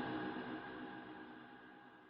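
Funk track fading out: a held electronic chord dying away steadily to near silence.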